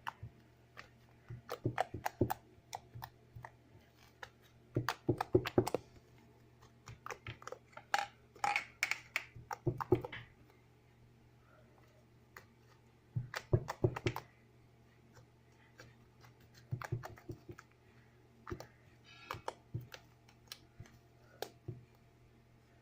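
Homemade shaving-foam slime being squeezed and worked by hand, giving clusters of sharp wet clicks and pops with short pauses between handfuls.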